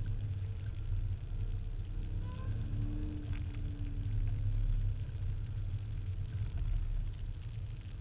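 SVT Cobra Mustang's V8 and tyre rumble heard from inside the cabin while driving across a dry lake bed: a steady low rumble, with a faint engine note that rises and falls a little midway.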